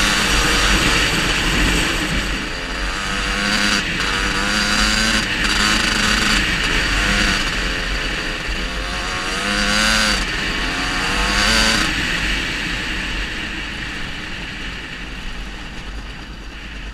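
GasGas 300 two-stroke motorcycle engine under way, its pitch rising and falling several times as the throttle is worked, then easing off and growing quieter over the last few seconds.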